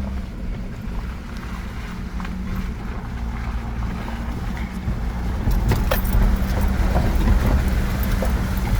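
Vehicle driving on a gravel road, heard from inside the cabin: a steady low hum and rumble with scattered clicks and crunches, getting louder about halfway through.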